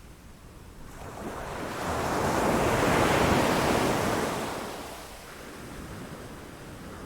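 Sea waves breaking against rocks: one wave swells up about a second in, crashes loudest around three seconds, and drains away by about five seconds, over a steady low wash of surf.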